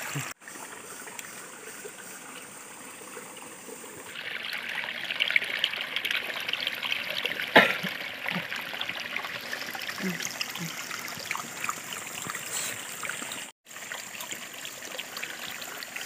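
Steady trickle of running water that grows louder about four seconds in, with one sharp click about halfway through.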